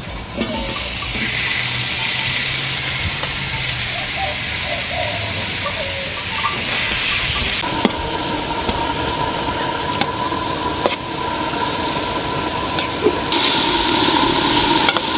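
Shrimp sizzling in hot oil on a disco, a wide steel plow-disc pan. In the second half a spatula scrapes and knocks against the metal a few times as the shrimp are stirred.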